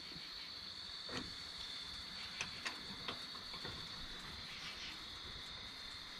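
A few faint, irregular clicks of an Allen key working in the brass service valve of a Pioneer mini-split outdoor unit as the valve is opened to release refrigerant into the line set, over a steady high-pitched whine.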